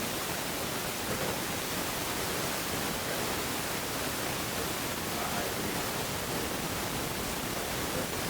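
Loud, steady hiss filling the whole range, the noise of a faulty recording, with a faint, distant voice barely showing through it.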